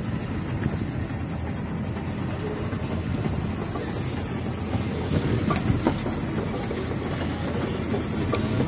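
Fishing boat's engine running steadily as a low rumble, with a few light clicks between about five and six seconds in.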